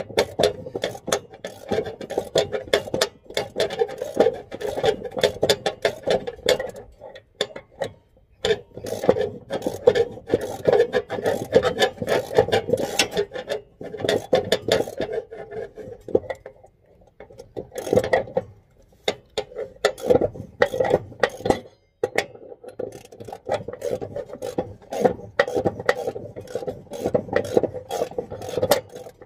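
Hand tool scraping and clicking on metal in rapid strokes, in runs broken by a few short pauses: work on a worn blade bolt and nut of a zero-turn mower's cutting deck.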